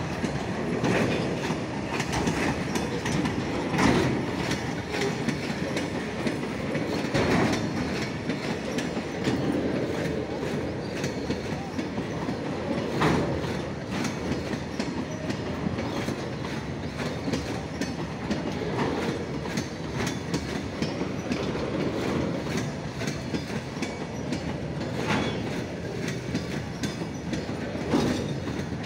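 Loaded oil tank wagons of a long goods train rolling past, their wheels clicking steadily over the rail joints, with a louder clank now and then.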